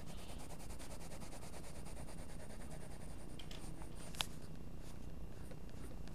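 Graphite lead of a mechanical pencil scratching and rubbing on paper in short shading strokes, with a single sharp click about four seconds in.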